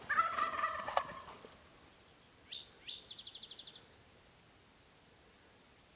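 Merriam's wild turkey gobbler gobbling once, a loud rattling gobble in the first second and a half. A small songbird follows with two quick rising chirps and a fast high trill.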